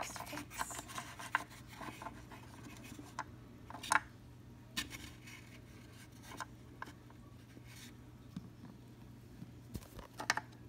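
Handling noise: scattered light clicks, taps and rubbing scratches as a phone is moved about and fingers brush it, over a steady low hum. The sharpest click comes about four seconds in.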